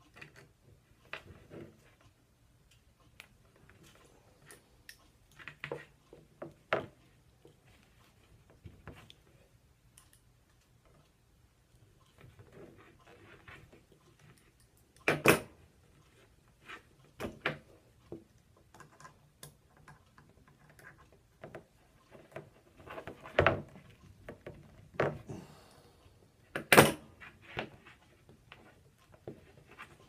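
Scattered clicks and knocks of pliers and a thick battery cable being handled on a wooden table as a terminal lug is squeezed onto the cable end without a crimping tool. Three sharper knocks stand out, one about halfway through and two near the end.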